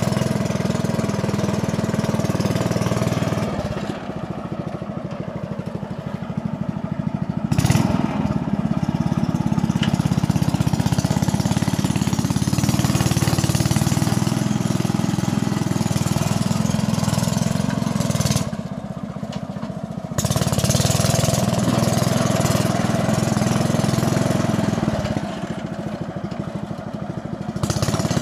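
Engine of a homemade mini tractor running steadily as the tractor drives with its rear leveling blade down. It drops in level twice, for a few seconds each time: once about four seconds in and again around eighteen seconds.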